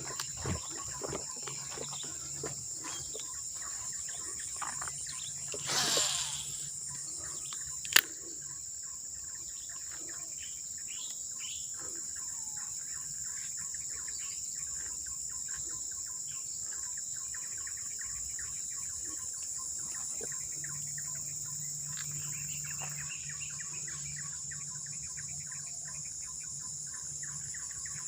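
A steady, high-pitched chorus of insects, with scattered bird chirps. A brief rush of noise comes about six seconds in, and a single sharp click, the loudest sound, about two seconds later.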